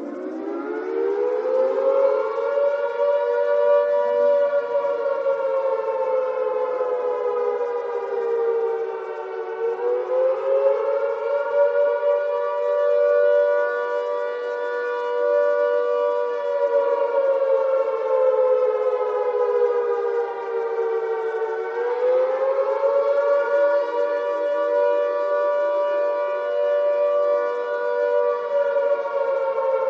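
Air raid siren winding up in pitch over the first few seconds, then wailing on two close tones together. The pitch sags slowly and swings back up about every twelve seconds.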